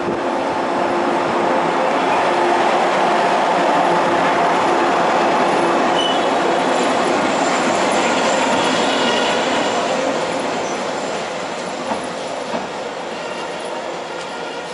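A train pulling into the station past the platform: steel wheels running on the rails with a faint high wheel squeal, loudest as the cars go by, then easing off as it slows. Two short clacks come near the end.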